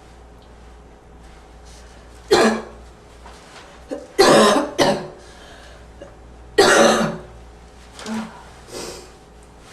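A person's slight, wheezy, barking cough in a series of separate coughs. There is a loud cough about two seconds in, a quick pair around four to five seconds, another loud one near seven seconds, then two softer coughs near the end.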